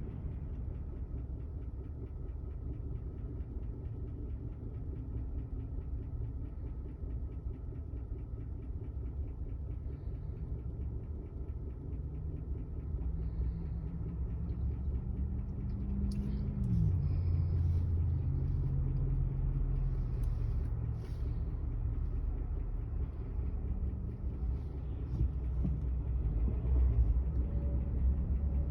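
2021 GMC truck's 6.2 L V8 driving with a steady low rumble. A tone climbs for several seconds as it accelerates, then drops sharply about 17 seconds in, like a gear change, and the running carries on lower.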